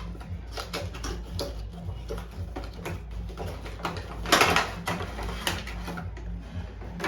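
A small product box and its packaging being opened and unpacked by hand: scattered clicks and rustling, with a louder rustle a little after four seconds in, over a steady low hum.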